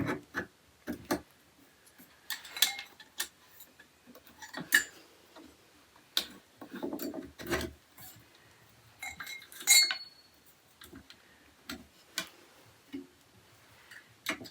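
Irregular metallic clicks, clinks and knocks as a metal storage rack is assembled, with Allen keys and bolts tapping against the rack's metal parts while the bolts are tightened. About ten seconds in, one clink rings briefly.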